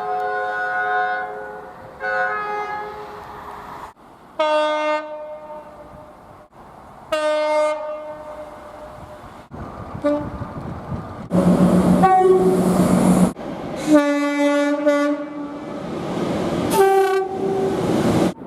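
Train horns from several different trains sounding one after another, about eight blasts of differing pitch joined by abrupt cuts. The longest and loudest, a lower two-note blast, comes about eleven seconds in, with wheel and track noise underneath.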